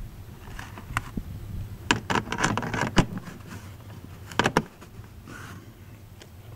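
Handling noise close to the microphone: a run of sharp clicks and rustles, bunched about two seconds in and again near the middle, over a steady low background.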